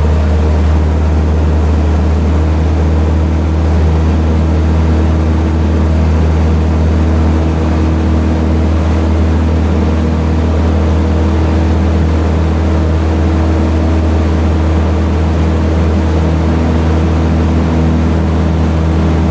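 Ultralight aircraft's engine and propeller droning steadily in cruise, a strong low hum that holds one even pitch.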